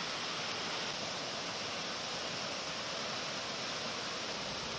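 Steady, even outdoor hiss of weather noise, with no distinct events.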